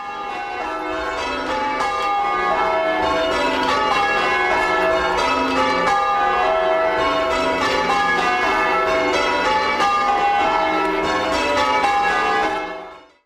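Church bells being rung in changes: a continuous run of overlapping bell strikes, rising over the first couple of seconds and fading out near the end.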